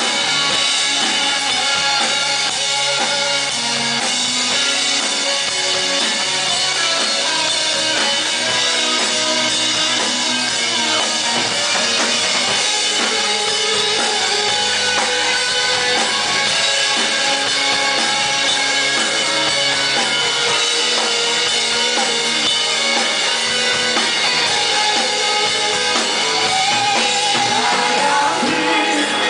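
Live rock band playing an instrumental passage, with drum kit and bass guitar under held tones, loud and steady.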